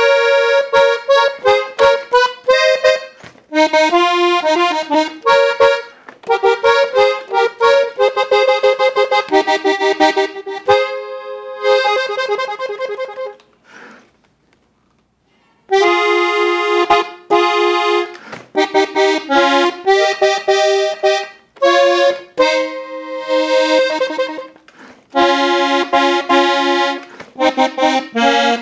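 Parrot accordion tuned in F played solo: short melodic runs and chords. The playing stops for about two seconds midway, then resumes.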